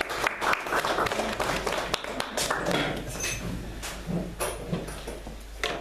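Scattered clapping and clatter of things being handled on a table, with low talk among people.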